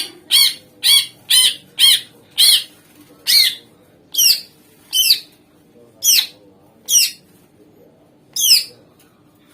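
Cucak ijo (green leafbird) giving a loud series of about a dozen sharp, ringing calls, each a quick sweep in pitch. They come about two a second at first and slow to one every second or so towards the end.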